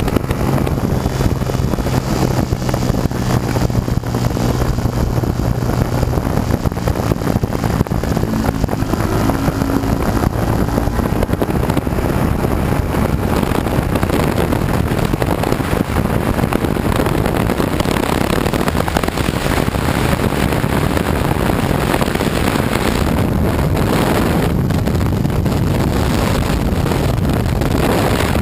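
Yamaha YZF-R125's 125 cc single-cylinder four-stroke engine running steadily under way, with heavy wind rush on the microphone. The engine's note is plainest in the first third, then the wind noise mostly covers it.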